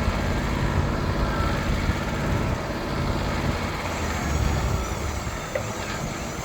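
Sawmill's engine running steadily with a low hum that shifts slightly partway through.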